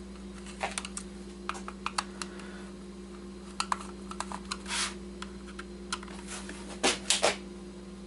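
Scattered small plastic clicks and ticks from a screwdriver backing screws out of an HP wireless keyboard's plastic case as the keyboard is handled, with a brief scrape about five seconds in and a few louder clicks near the end. A steady low hum runs underneath.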